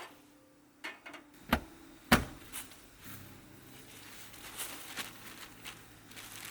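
Cooking gear being handled: a few sharp knocks and clatters, the loudest about two seconds in, then a faint low steady hum with light clicks.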